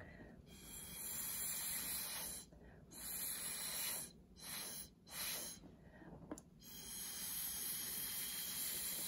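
Breath blown through a plastic drinking straw onto wet acrylic pour paint, five separate puffs of airy hiss, the last and longest starting near the end. The blowing pushes the paint to try to bring up cells.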